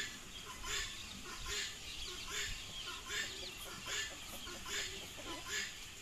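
Soft low clucking from a turkey over a regular rasping pulse that repeats about every 0.8 seconds.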